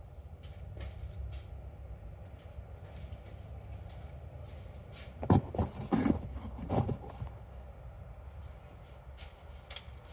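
Handling noise: scattered light knocks and scrapes over a low rumble, with a cluster of louder muffled bumps and rubbing about halfway through as a fleece sleeve brushes over the phone and box.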